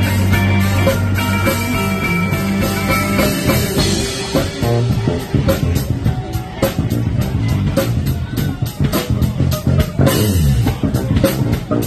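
Live electric bass guitar solo with drum kit backing. The bass holds long low notes at first, then about four seconds in breaks into quicker lines over a steady, sharper drum beat.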